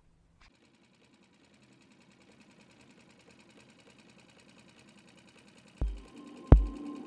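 Background music fading in: a faint, rapid, even ticking grows louder, then a heavy, deep drum beat comes in near the end, about 0.7 seconds between beats.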